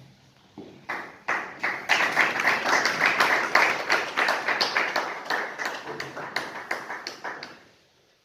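Audience applauding. The clapping starts about a second in, is loudest around the middle and dies away near the end.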